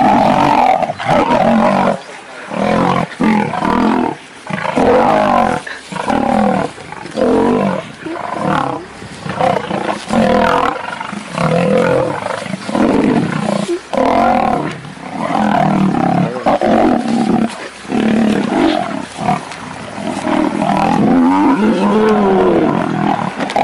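Lions fighting, giving loud snarls and roars in bouts of a second or two with short breaks between.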